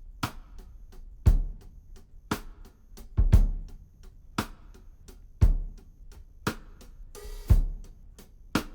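Background music with a steady drum beat: a heavy low drum hit about once a second with lighter hits between, and a short rising swell of noise leading into one beat near the end.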